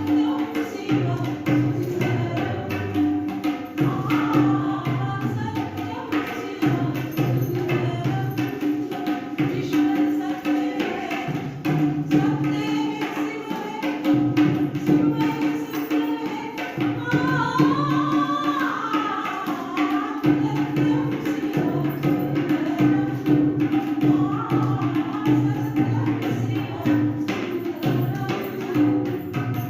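Music: a voice singing a Hindi film song over a steady drone with tabla-like hand percussion keeping a regular beat. The sung melody stands out most a little past the middle.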